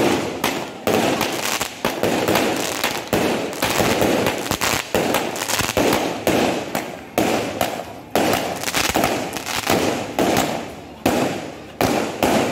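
Firecrackers going off: an irregular string of sharp bangs, two or three a second, each ringing out briefly.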